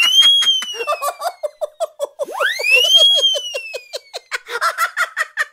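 Added comedy sound effects: a whistle that sweeps sharply up and then slides slowly down, twice, about three seconds apart, over a fast run of giggling laughter.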